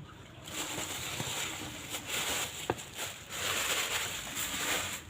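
Packaging of a boxed audio mixer rustling and scraping as it is handled during unboxing, with one sharp click just under three seconds in.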